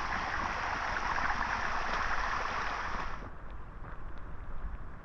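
Rainwater rushing and splashing down stone steps, a steady hiss that drops away suddenly about three seconds in, leaving a fainter trickle with a few small ticks.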